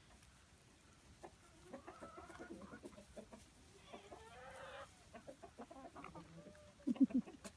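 Chickens clucking softly as they feed, in short scattered calls, with a louder burst of low clucks near the end.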